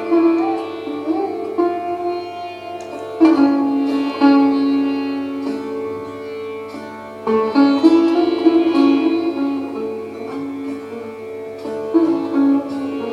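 Sitar playing Indian classical music: plucked notes that ring on over a steady drone, with the pitch bent in slides in the first moments and fresh sharp strokes every few seconds.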